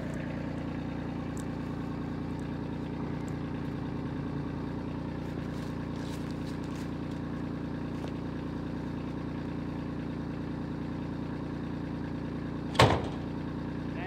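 Kubota compact tractor's diesel engine idling steadily while it warms up, with one sharp knock near the end.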